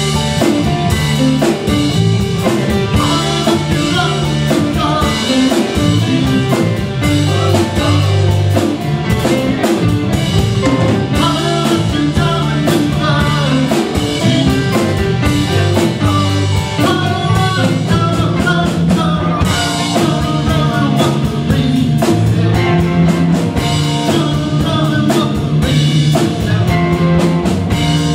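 Live rock band playing: two electric guitars, electric bass and a drum kit.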